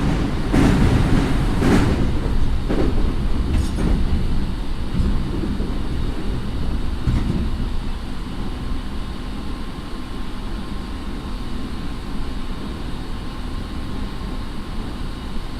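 Running sound heard inside a JR 209 series electric train's motor car: a steady low rumble of wheels and traction gear. Several sharp wheel knocks over rail joints come in the first few seconds, then the ride settles into an even rumble with a faint thin steady tone.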